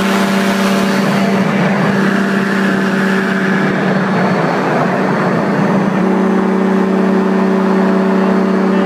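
Tandem paramotor's engine and propeller running steadily in flight, a constant drone that wavers for a few seconds midway and settles again about six seconds in.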